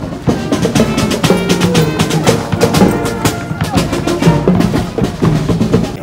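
Marching band playing, drums prominent, with pitched instruments over a steady run of drum hits.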